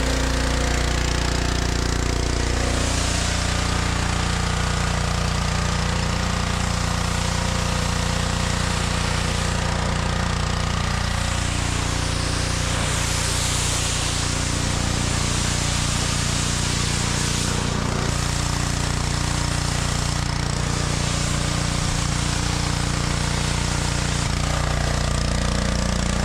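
Gas engine of a Simpson 3200 PSI pressure washer running steadily at a constant speed.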